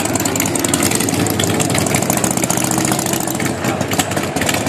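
Several motorcycle engines idling and running together in a steady, rough rumble, with a coach's engine mixed in.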